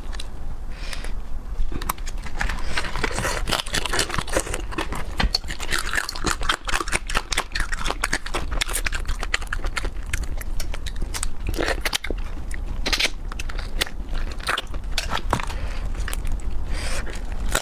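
Close-up chewing and biting of crunchy food: a dense, continuous run of crunches and crackles.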